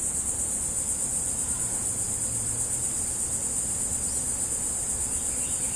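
A steady, high-pitched chorus of insects making a fast, even trill that never stops.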